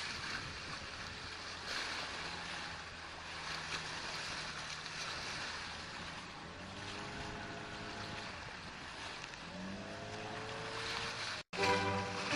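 Steady rush of wind and sea water with a faint boat motor hum underneath; the motor's pitch rises about nine seconds in. The sound cuts off abruptly just before the end.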